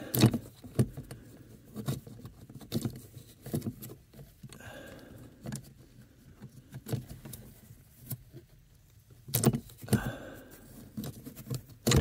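Scattered metallic clicks, taps and rattles of pliers working the accelerator cable's plastic retaining pin loose from the top of the accelerator pedal, with light rustling between them. The sharpest knocks come right at the start and about nine and a half seconds in.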